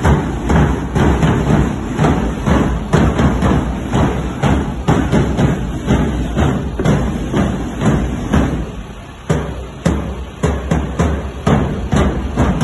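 A marching band's drum line, mostly bass drums struck with mallets, playing a steady beat together. The drumming dips briefly about nine seconds in.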